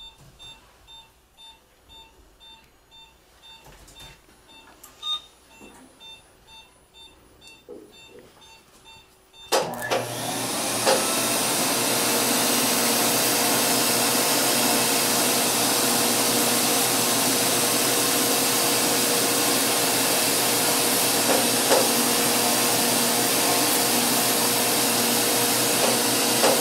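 Quiet room with short regular beeps, then about nine seconds in a surgical smoke evacuator (the laser's vacuum) switches on suddenly and runs steadily with a loud whooshing hiss and a faint hum, drawing off the smoke from the laser incision.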